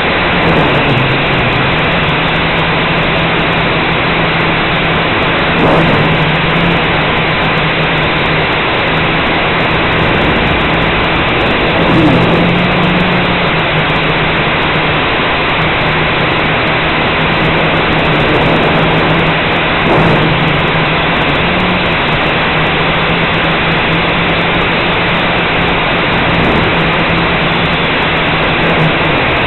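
Blade 180 QX quadcopter's electric motors and propellers running, heard up close through its onboard camera: a steady low hum over a loud rushing hiss. The sound briefly swells and shifts in pitch about six, twelve and twenty seconds in, as the throttle changes through flips and rolls.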